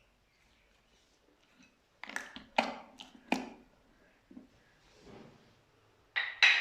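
Slime being pressed and squeezed by hand, giving short, sharp, wet pops and squelches from trapped air: a quick run of four about two seconds in, a few faint ones after, and two louder pops near the end.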